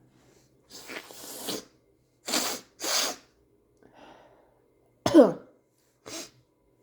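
A woman's breathing as she tries to sneeze from sniffed black pepper: two short, sharp sniffs through the nose, then a loud falling 'whew' breathed out. Her nose is burning from the pepper and the sneeze does not come.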